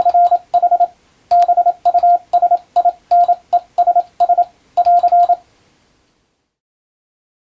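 Morse code (CW) sent as a single steady tone of about 700 Hz, keyed in quick dots and dashes with a sharp click at many key-downs. It stops a little over five seconds in.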